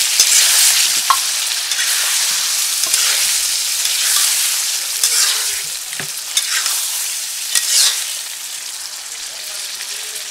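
Egg curry sizzling in an aluminium karahi while a metal spatula stirs it, scraping the pan every second or two. The sizzle eases slightly near the end.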